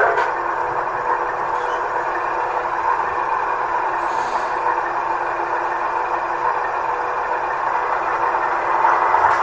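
Sound decoder in a model Dash 9 diesel locomotive playing a steady diesel engine sound through the model's small speaker.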